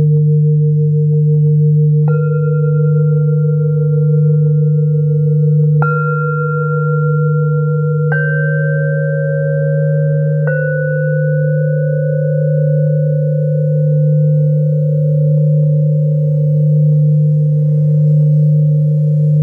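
Tibetan singing bowls ringing: a deep bowl's low hum sustains with a slowly pulsing overtone. Four mallet strikes on smaller bowls, about 2, 6, 8 and 10 seconds in, each add a higher ringing tone that slowly fades.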